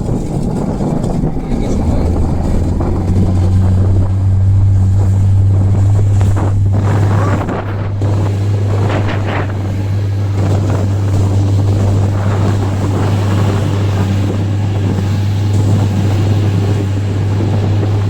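Motorboat engine running steadily with a low, even hum that comes in about two seconds in, with wind rushing over the microphone.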